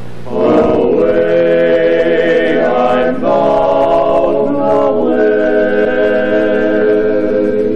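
Male barbershop quartet singing a cappella in close four-part harmony, holding long chords, with brief breaks about three and five seconds in.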